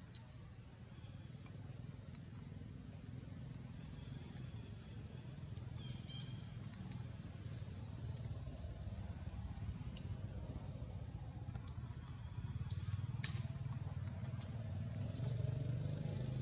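Steady, high-pitched drone of insects over a low rumble, with a short run of rapid ticks about six seconds in and a single sharp click about thirteen seconds in.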